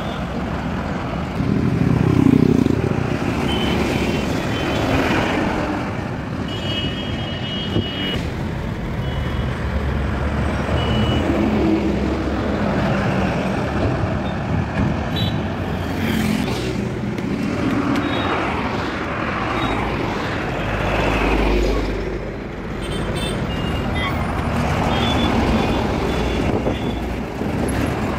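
Highway traffic passing close by: loaded diesel trucks, a tipper and a tanker, with motorcycles and a car. Engine drone and tyre noise swell and fade as each vehicle goes past.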